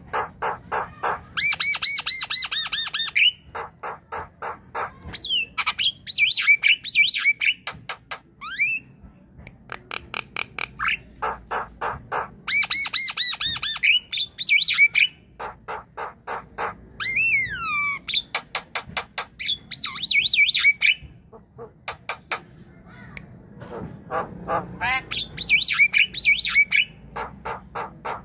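Javan myna singing vigorously: trains of rapid clicking notes alternating with harsh, squawky whistled phrases, delivered in repeated bouts every few seconds.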